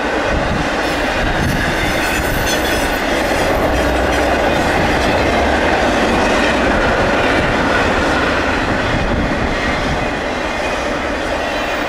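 Double-stack container freight cars rolling past on the rails: a steady, loud running noise of steel wheels on track, with a few brief clicks in the first few seconds.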